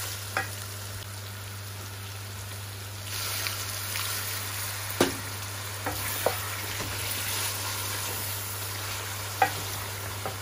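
Chicken pieces frying in oil and spices in an aluminium karahi, a steady sizzle that grows louder about three seconds in. A wooden spatula stirs them, knocking sharply against the pan now and then.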